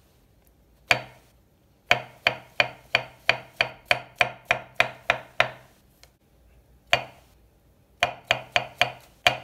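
Chef's knife slicing button mushrooms on a wooden cutting board. There is one cut, then a quick run of knocks of the blade on the board at about four a second. After a pause comes a single cut, then another quick run near the end.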